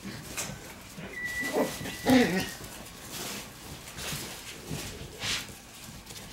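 Black Shiba Inu puppies play-fighting, with short growling yaps about one and a half to two and a half seconds in, the loudest just after two seconds. A thin high whine is held under the yaps. A few brief scuffs come before and after.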